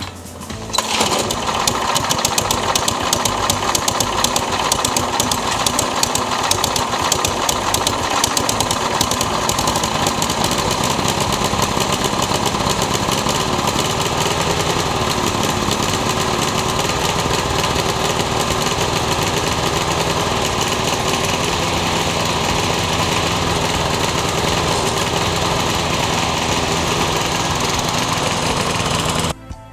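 Husqvarna self-propelled lawn mower's engine running steadily while being pushed to break in newly replaced drive wheels. It comes in sharply about a second in and cuts off suddenly near the end.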